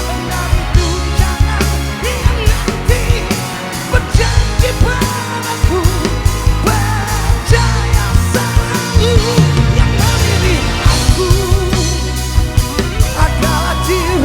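Rock band playing an instrumental passage of a Malay pop-rock ballad: a steady drum-kit beat under a lead melody line with vibrato.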